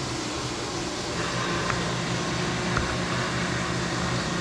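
Steady mechanical hum and hiss of running machine-shop equipment, with a few faint light ticks.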